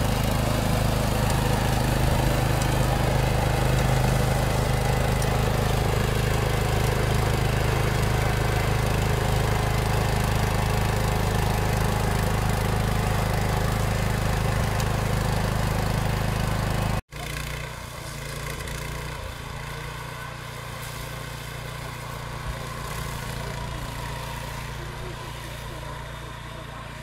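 Petrol engine of a DAKR Golem remote-controlled flail mower running steadily at working speed while cutting tall dry grass. About 17 seconds in, the sound cuts off suddenly and gives way to the quieter, steady engine of a walk-behind two-wheel tractor mowing.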